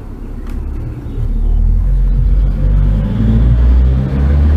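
Loud low rumble, building about a second in and then holding.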